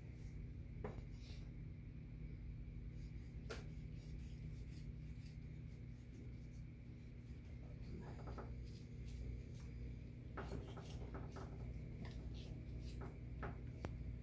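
Kitchen knife cutting and scraping through a whole fish on a wooden cutting board, in scattered short scrapes and taps as the fish is filleted. A faint steady low hum runs underneath.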